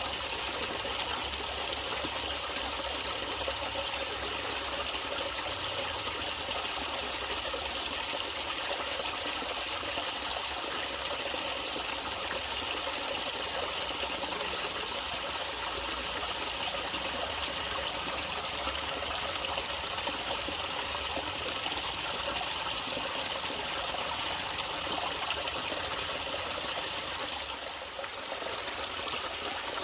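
A stream of running water trickling and flowing steadily, dipping briefly in level near the end.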